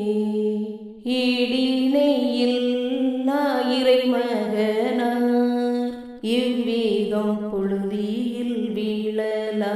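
A voice singing a slow Tamil Way of the Cross hymn, with long held notes and short breaks between phrases about a second in and about six seconds in.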